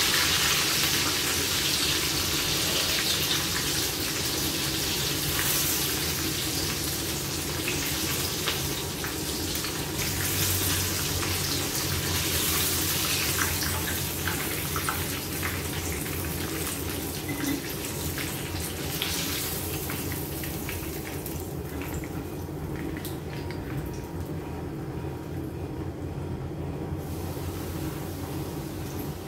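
Breaded chicken pieces frying in hot oil in a frying pan: a steady sizzling hiss that slowly quietens as the pieces are lifted out, with occasional clicks of a fork against the pan.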